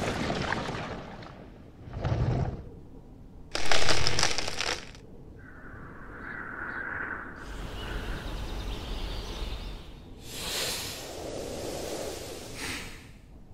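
Film sound effects of stone cracking and crumbling: a deep boom dying away, then sudden bursts of breaking rock a couple of seconds apart, with quieter stretches of rushing noise between them.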